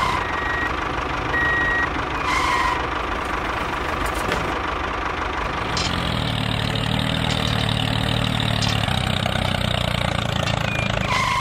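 Tractor engine running steadily, with two short high beeps in the first two seconds.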